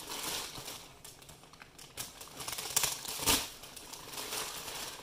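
Plastic mailer bag crinkling and rustling as it is handled and slit open with a Civivi folding knife, with a couple of sharp snaps about three seconds in.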